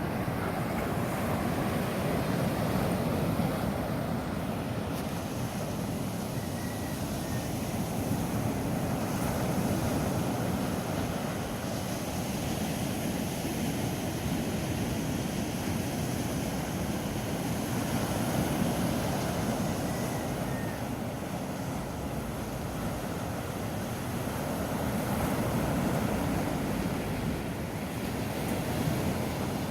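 Ocean surf breaking on a beach: a steady rush of waves that swells and eases every several seconds.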